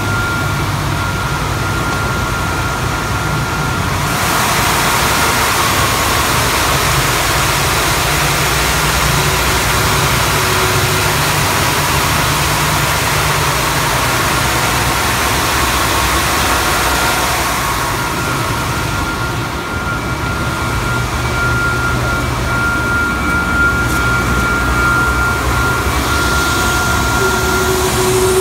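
Three-head wide belt sander running: a steady machine hum with a thin high whine, and a louder hiss for a stretch from about four seconds in to about eighteen seconds in.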